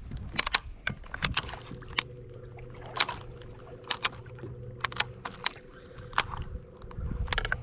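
A fishing boat's steady motor hum, starting about a second and a half in and stopping near the end, under frequent sharp clicks and knocks.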